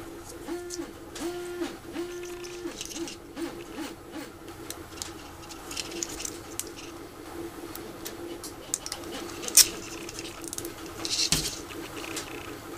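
Light clicks and rustles of fingers handling a small plastic microswitch, its wires and a nylon zip tie, with sharper clicks near the end. A steady low hum runs underneath, and three short hooting tones sound about a second apart near the start.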